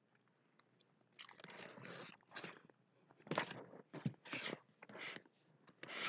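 Irregular crunching and rustling that starts about a second in, the sound of the camera being picked up and handled as it is moved.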